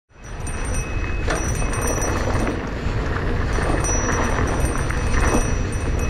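Electric mountain bike (2019 Giant Trance E+ 2) riding a dirt trail: a steady rumble of wind on the camera microphone, mixed with tyre noise and the bike's rattles and clicks. It cuts in from silence at the very start.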